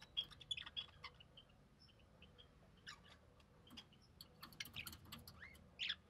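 Faint, high squeaky chirps from a budgerigar chick, the begging calls of a chick being fed, coming in short clusters and growing busier near the end with one louder squeak.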